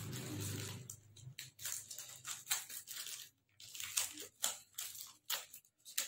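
Small scissors snipping through a parcel's black plastic wrapping and packing tape: an irregular run of short, sharp cuts starting about a second in, after a faint low hum.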